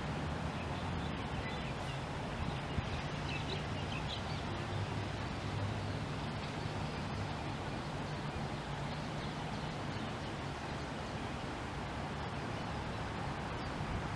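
Steady outdoor background noise with a low rumble, and a few faint, short, high bird chirps about three to four seconds in.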